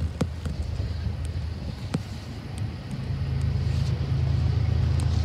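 Low, steady rumble of approaching diesel locomotives, growing louder about three seconds in.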